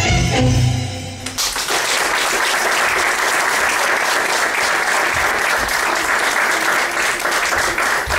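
Dance music ends on a held note a little over a second in, then an audience breaks into steady applause.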